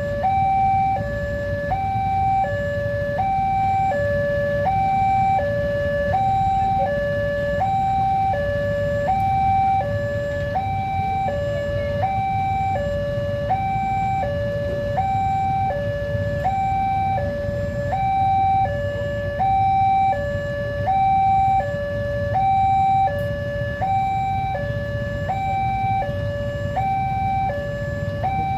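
Railway level-crossing warning alarm sounding: an electronic two-tone signal alternating steadily between a lower and a higher note, each pair lasting about one and a half seconds, with a steady low rumble underneath.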